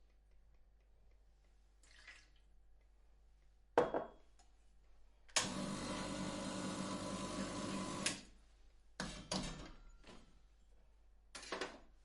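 Electric coffee grinder motor running in short bursts. A sharp knock comes first, then a steady grinding run of about three seconds, then two brief pulses near the end.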